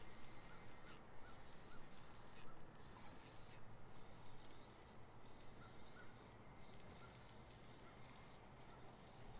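Faint whirring of a fishing reel being wound in short runs, with brief pauses between them, while a hooked bass pulls on a bent rod; soft little chirps sound over it.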